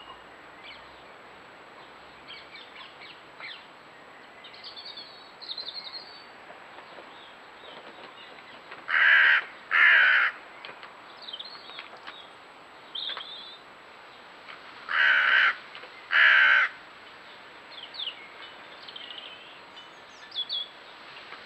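A crow cawing, two harsh caws about a second apart, then another pair some five seconds later, over faint songbird chirps.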